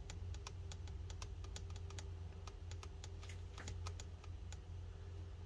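Keys on a MacBook Pro A1502's scissor-switch keyboard being tapped repeatedly: irregular light key clicks, about four a second, that stop about a second before the end, over a steady low hum.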